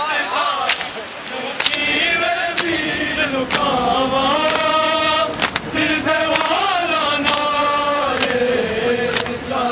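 Men chanting a Shia noha (mourning lament) in a slow sung melody. Over it, a crowd beats their chests in matam, all together, with a sharp slap about once a second in time with the chant.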